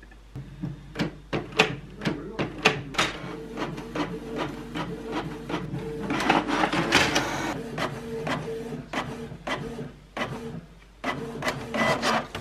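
Inkjet printer pulling in a sheet and printing: a steady motor whir under a run of sharp clicks and clacks, with a denser, louder rattling stretch around the middle.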